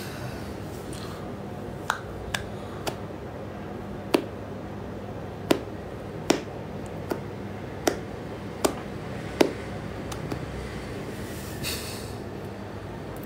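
About ten sharp taps or clicks close to the microphone at uneven spacing, over a steady low hum.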